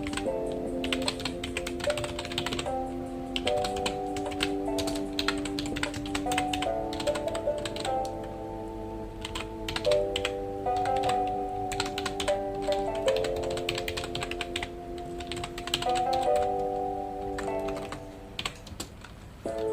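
Computer keyboard typing in quick bursts of key clicks with short pauses between them, over soft background music of sustained chords.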